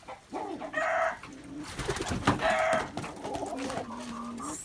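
Chickens calling in a coop: a few short, loud pitched calls, with lower, drawn-out calls in the second half.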